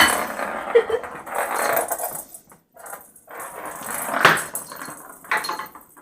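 A pet animal's noisy vocal sounds in several bursts of a second or two each.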